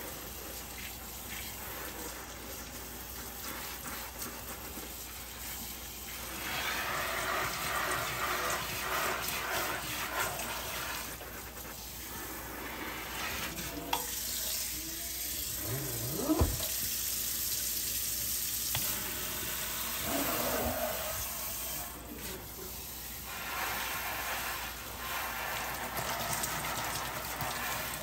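Water from a kitchen faucet's pull-down sprayer pouring onto a potted plant's leaves and soil in a stainless-steel sink, growing louder and softer by turns as the stream moves. Two short knocks come about halfway through.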